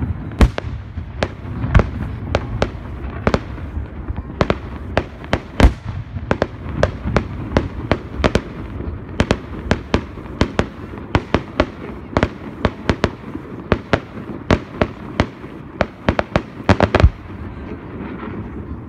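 Aerial fireworks going off in quick, irregular succession: sharp bangs several a second over a steady low rumble, with a tight cluster of loud bangs near the end.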